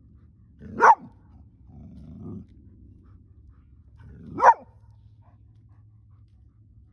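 Golden retriever barking twice, two short sharp barks about three and a half seconds apart, with a brief low growl between them.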